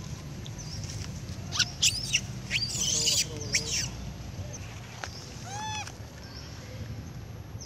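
Young long-tailed macaques screeching in a scuffle: a run of sharp, shrill cries from about one and a half seconds in, lasting about two seconds, then a single arched call near six seconds. Short high chirps recur faintly behind them.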